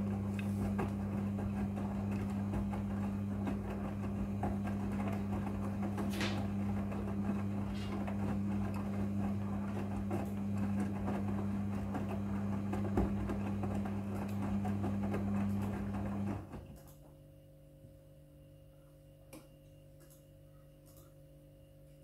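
Midea front-loading washing machine in its wash cycle: the drum motor's steady hum with the swish of wet clothes tumbling in the drum. About three-quarters of the way through the drum stops and the sound drops to a faint hum with a few light clicks.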